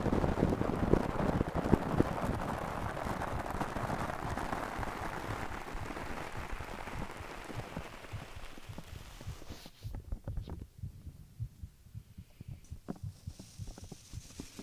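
Heartbeat thumping, heard close up, under a rushing noise. About ten seconds in the rushing fades out, leaving only the low beats.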